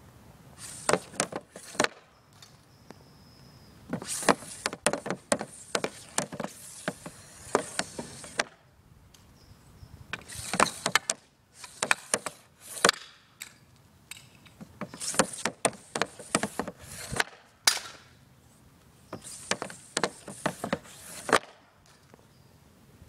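Easton Mako composite hockey stick working pucks on a plastic shooting board: the blade scrapes and clacks across the board, with sharp cracks as it strikes the pucks. This comes in about five bursts of a few seconds each, with short quiet gaps between.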